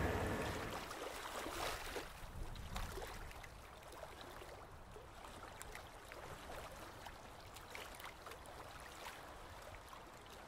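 The sound of a passing freight train fades out over the first two or three seconds, leaving a faint, even water ambience with small trickling and bubbling sounds.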